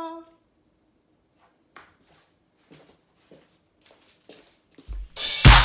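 A few faint soft knocks in a near-quiet room, then loud music with a strong beat starts suddenly near the end.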